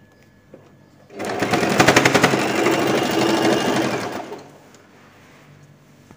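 Electric sewing machine stitching at speed for about three seconds, the needle strokes coming in a fast even run that starts about a second in and winds down to a stop, as elastic is sewn onto the edge of cotton fabric.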